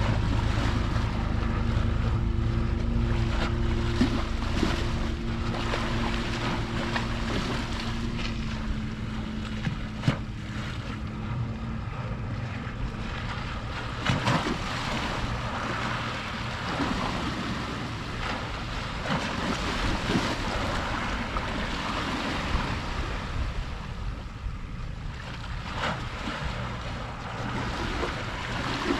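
Sea waves washing against the shore under wind, with a boat engine running steadily for the first third and fading out about ten seconds in. A few sharp knocks stand out.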